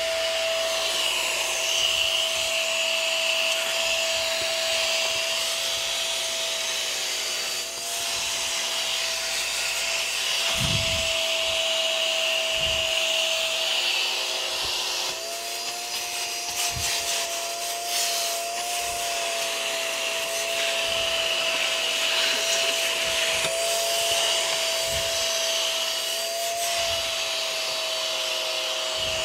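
Lightweight budget vacuum cleaner running steadily, its motor giving a high whine over rushing air. About halfway through the whine rises slightly and starts to waver, and a few dull knocks come from the hose being handled.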